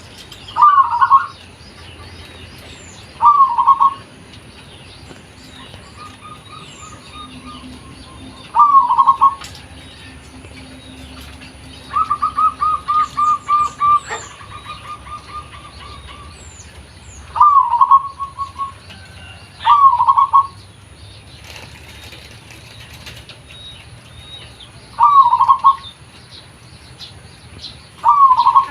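Zebra dove (perkutut) cooing: short, loud coo phrases repeated every two to five seconds, with one longer run of quick even notes in the middle. Small birds chirp faintly in the background.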